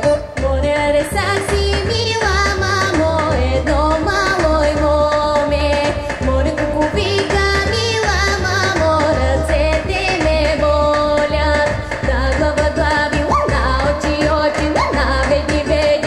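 A woman sings a Bulgarian folk song into a microphone through a PA, over amplified instrumental accompaniment with a steady, regular bass beat.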